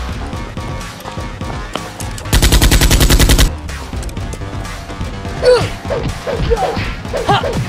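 A burst of rapid automatic gunfire, a little over a second long, a couple of seconds in, over background music.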